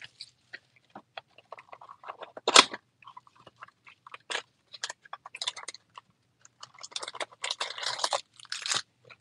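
Small cardboard Topps Finest mini box being opened by hand: scattered crackles and rustles of the cardboard, with a sharper rip about two and a half seconds in and a busier stretch of tearing and rustling near the end.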